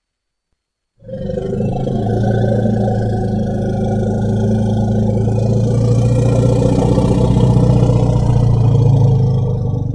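Steppe mammoth sound effect: one long, low call held at a steady pitch, starting about a second in and growing a little louder toward the end.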